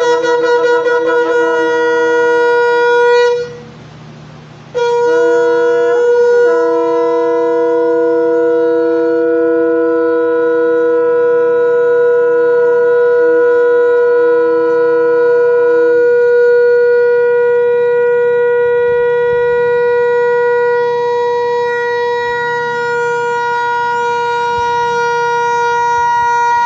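Shofars (rams' horns) blown in long, steady held notes, two pitches sounding together. The blast breaks off a few seconds in and resumes about a second and a half later. Around the middle the lower note stops while the higher one holds on.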